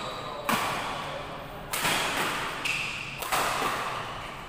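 Badminton rally: rackets strike the shuttlecock three times, about a second and a half apart, each hit sharp and ringing on in a large echoing hall.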